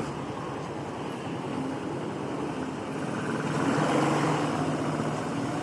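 Motorcycle engine running at a steady pitch, the hum swelling louder about four seconds in.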